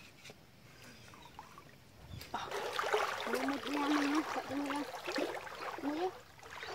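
Creek water splashing and sloshing as people wade through it, starting about two seconds in after a single sharp click. A person's voice sounds briefly over the splashing.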